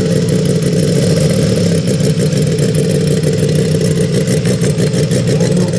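Valach R5-420 five-cylinder radial engine of a large-scale model plane running steadily at low speed, propeller turning.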